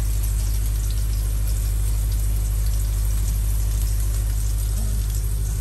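A steady low motor hum with a fine, even pulse runs throughout. Over it sits a crackling hiss of food frying in a hot pan.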